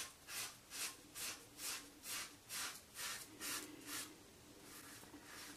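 Rockwell 6C safety razor scraping through stubble on a lathered scalp in short, quick strokes, about two a second, then stopping for a second or so near the end.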